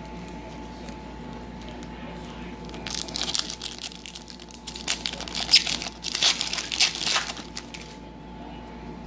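Foil trading-card pack wrapper being torn open and crinkled, in two spells of crackling a few seconds in.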